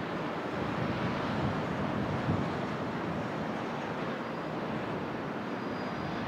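Steady distant rumble of lorry traffic: the engines and tyres of articulated lorries heard from far off, an even noise with no single event standing out.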